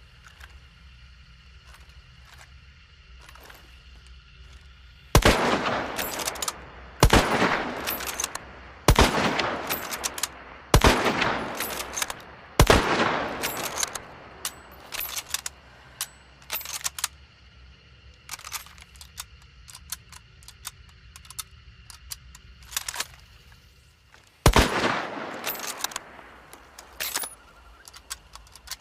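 Mosin-Nagant M1891 bolt-action rifle firing: five loud shots about two seconds apart, each trailing off in a decaying echo, then lighter metallic clicks and one more shot near the end.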